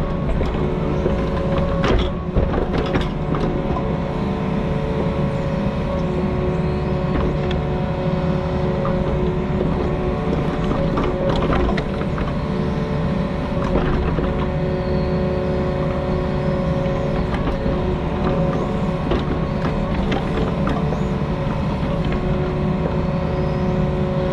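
Diesel engine of a compact construction machine running steadily under work, with a steady whine that fades and returns, and a few sharp clanks.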